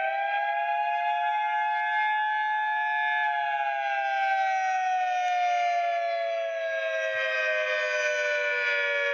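A siren wailing in two close tones. The pitch holds high for about three seconds, then slowly falls through the rest.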